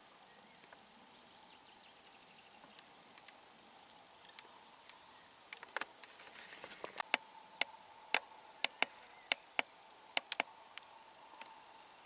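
Quiet field ambience with a faint steady high tone, then, from about halfway through, a run of about a dozen sharp, irregular clicks.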